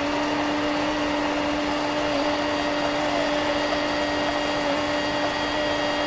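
A car's in-cabin sound played back at ten times speed while the car waits at an intersection, turned into a steady whirring hiss with a constant tone running through it.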